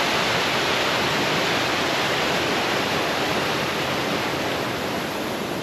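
Steady rushing of a small mountain stream's water falling over rocks.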